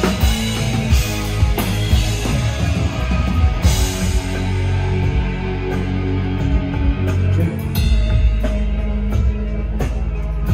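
Rock band playing live, drum kit prominent over sustained bass.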